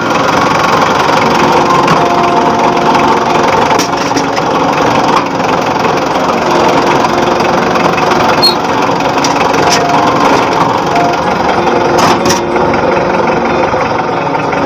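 Toyota 2.5-ton forklift engine running steadily. It is the start after a no-start fault, traced to a bad relay, was cured by swapping in another relay.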